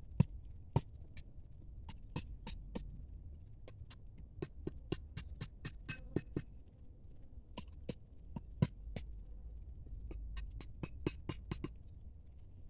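Irregular sharp clicks and taps, a few to several a second, with a faint high-pitched trill that comes and goes behind them.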